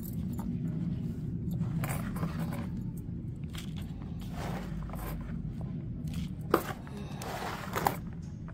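Hands scooping and pressing a vermicompost-and-soil mix into a small plastic pot: soft scrapes and rustles, with one sharp click about six and a half seconds in. A steady low hum runs underneath.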